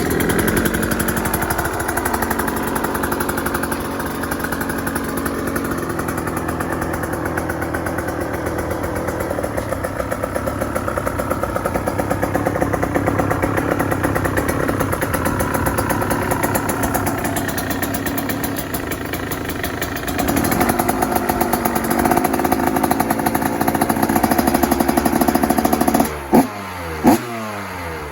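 2023 KTM 125 SX single-cylinder two-stroke engine with its stock exhaust, running steadily at a high idle while cold, a little louder from about twenty seconds in. Near the end it is revved twice, short sharp revs that fall away quickly.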